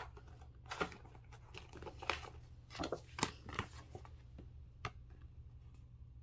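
Rustling and crinkling of a makeup pouch and a printed cardstock insert card being handled and pulled out, in several short faint bursts.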